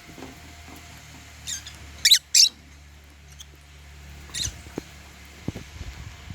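African lovebirds chirping: short, sharp, high-pitched chirps, the two loudest in quick succession about two seconds in and another about halfway through. A steady low hum runs underneath, and a few soft taps come near the end.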